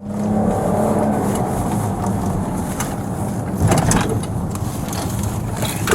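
Squad car driving, with steady engine and road noise heard from inside the cabin and a few short clicks and knocks.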